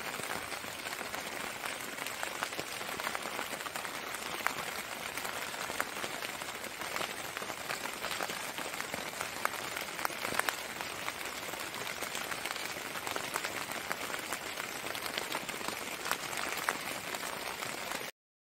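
Rain pattering steadily: an even hiss dotted with small drop ticks, cutting off suddenly near the end.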